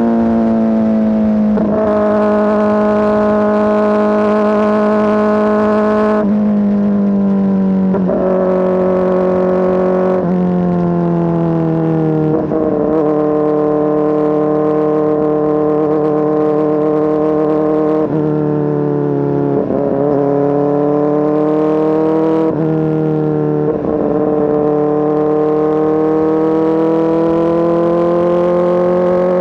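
Kawasaki ZX-4RR's inline-four engine running loud through an SC Project S1 exhaust. It holds a steady, high tone that shifts in pitch in several steps, each with a brief break, and climbs slowly near the end.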